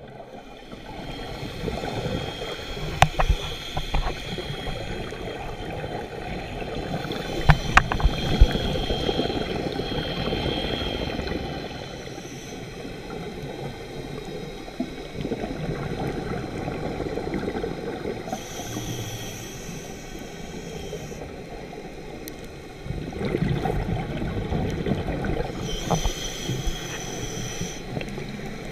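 Muffled underwater noise picked up by a camera below the surface: a steady low rushing and gurgling of water, with a few sharp knocks in the first several seconds.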